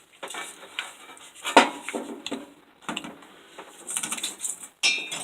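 Metal parts and tools of a disassembled angle grinder clinking and knocking as they are handled, in scattered clicks with one sharper knock about a second and a half in and a brief squeak near the end.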